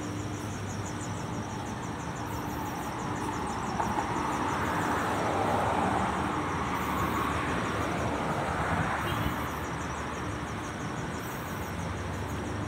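Street traffic noise: a car passes, its tyre and engine noise swelling and fading over several seconds in the middle, over a steady background hum of the road.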